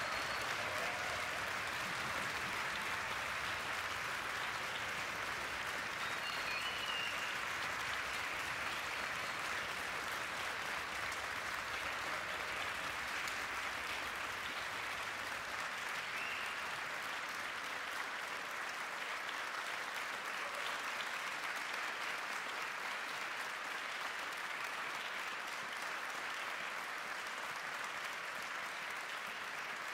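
Large audience applauding steadily, a sustained ovation at the close of a performance.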